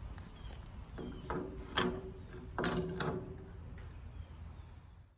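Hand tools knocking and clattering against a pressure-treated board as it is measured and marked for a cut: a few separate knocks, each with a short ringing tone, the loudest about two seconds in.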